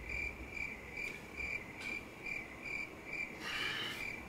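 Cricket chirping sound effect: a regular train of short, high chirps, about two a second. It is the stock 'crickets' gag standing in for stunned silence.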